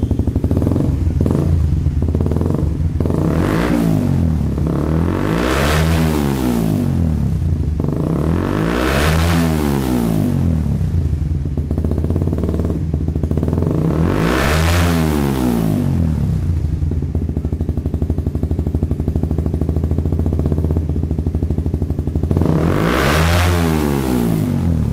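Motorcycle engine breathing through a Smoke muffler with no dB killer fitted, idling and blipped lightly, then revved four times, each rev rising and falling back to idle; the last goes to a little over 11,000 rpm. It is loud, with echo off the walls and roof of a closed room.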